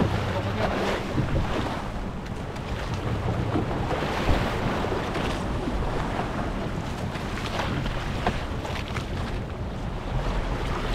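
Small fishing boat under way: its motor running steadily, with wind buffeting the microphone and water rushing past the hull.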